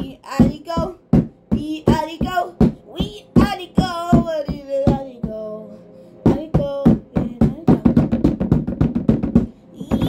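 A young child's improvised singing and vocal sounds, broken up by sharp percussive hits, with a fast run of hits in the second half.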